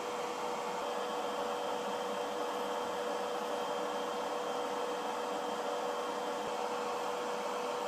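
A machine running steadily: an even whirring hiss with a constant hum tone.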